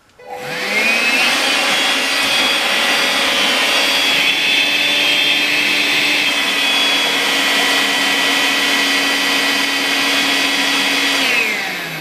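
Makita CL107FD cordless stick vacuum starting up with a rising whine, running steadily on its powerful setting while it sucks up a clump of long hair, then winding down with a falling whine near the end.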